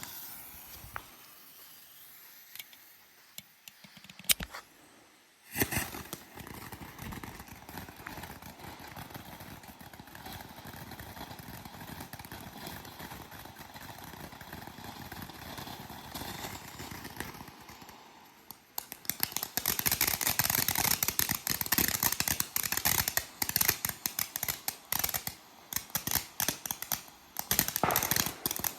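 Consumer fireworks going off: a single sharp pop a few seconds in, then a steady hissing, crackling spray, and about two-thirds of the way through a louder, dense run of rapid crackling pops.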